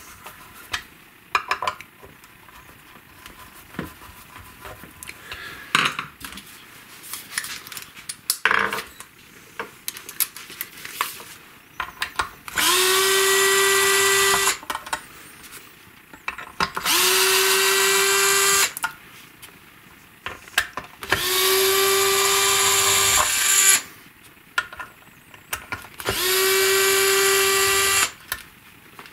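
Cordless drill-driver backing screws out of a Telecaster bridge plate, in four runs of about two seconds each in the second half. Each run is a motor whine that rises briefly as it spins up, then holds steady. Before the runs come light clicks of tool and metal handling.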